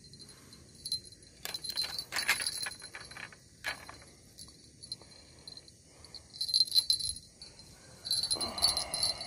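Small bite-alarm bell on a fishing rod jingling in several short bursts as the rod is handled, over a steady high insect drone.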